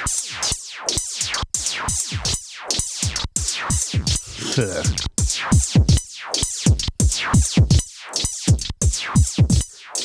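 Modular synth patch through a Joranalogue Delay 1 set to a very short delay with high feedback, its delay time swept hard by an LFO: a rapid run of metallic zings, each falling steeply in pitch, about three a second. The modulation is very extreme.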